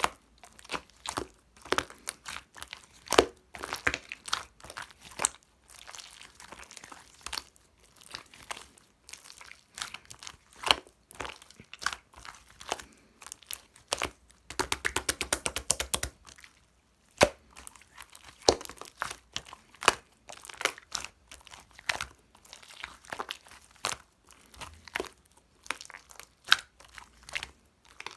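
Slime being pressed, stretched and poked by hand, giving sticky pops, clicks and crackles at irregular intervals. Around the middle there is a fast run of clicks lasting about two seconds.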